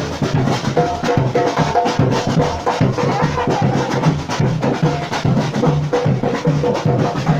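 Samba batucada percussion ensemble playing a steady rhythm: deep bass drum beats about twice a second under dense, fast drum strikes.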